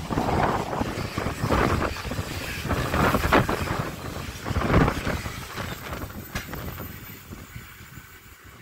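Container freight train's wagons rushing past close by in surges, with wind from the passing train buffeting the microphone. The noise fades away over the last few seconds as the end of the train passes and recedes.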